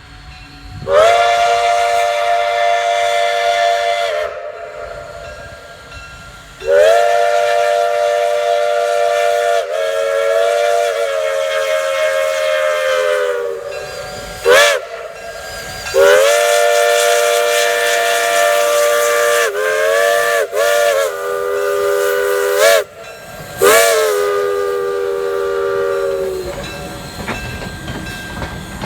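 Steam locomotive whistle blowing a series of blasts, each a chord of several tones that rises slightly as it opens. The long blasts last several seconds; short toots come about halfway through and again some seconds later. Steam hisses between the blasts.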